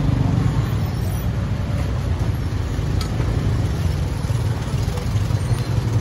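Steady low rumble of motor-vehicle engines and road traffic.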